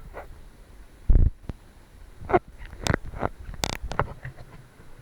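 Irregular knocks, scrapes and rustles, with a heavy low thump about a second in.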